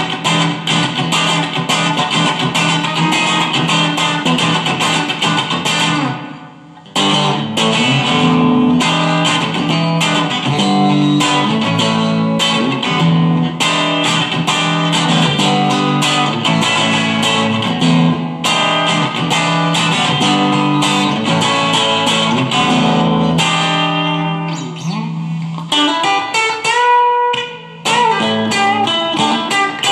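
Electric guitar, a Chinese-made copy of a Fender Stratocaster on its bridge pickup, played through an amp: quick picked riffs and lead lines, with short pauses about six seconds in and near the end, just after some string bends. Heard through a phone's built-in microphone.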